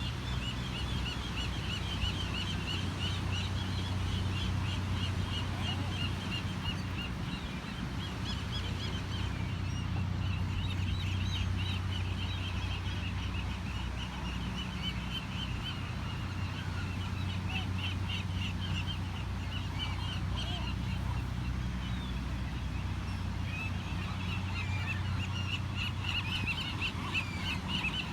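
A flock of seagulls calling: many short, high calls in quick succession, overlapping and growing busier near the end, over a steady low hum.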